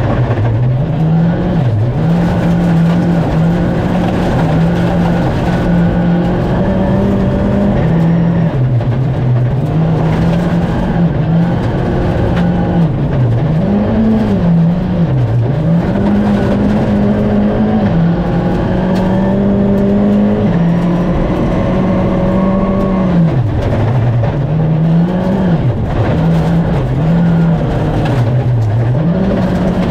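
Skoda Fabia Rally2 evo rally car's turbocharged four-cylinder engine at full stage pace, heard from inside the cabin: the revs climb and drop again and again through quick gear changes and lifts for corners, over constant road noise from the gravel.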